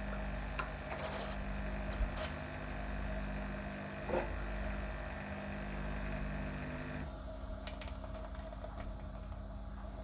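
Bosch Tassimo pod coffee machine's pump running steadily as it dispenses frothy milk from a milk pod into a mug. About seven seconds in the sound thins and gets a little quieter.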